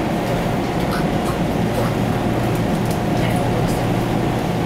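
Running noise heard inside a 489 series electric train car moving at speed: a steady low rumble with a constant hum over it and a few faint ticks.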